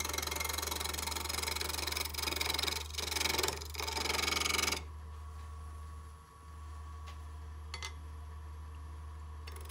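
Spindle gouge cutting a bead into a spinning off-centre wood spindle on a lathe, a steady hiss of the cut that swells and eases. About five seconds in the cutting stops, leaving a low steady hum.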